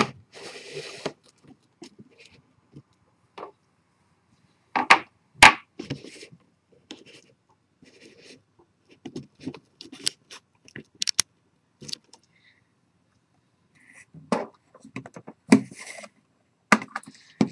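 Plastic clicks, taps and scrapes from handling a continuous ink system's ink tank and its lid. A few sharp clicks stand out, about 5, 11, 14 and 17 seconds in.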